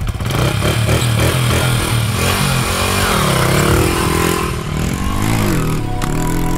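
Motorcycle engine running, its pitch rising and falling several times as it revs.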